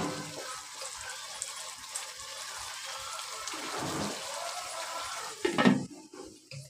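Potato and aubergine curry sizzling and bubbling in a non-stick wok after a splash of water, with a plastic spatula scraping and knocking against the pan. Near the end there is a louder clatter as a glass lid is set on the wok.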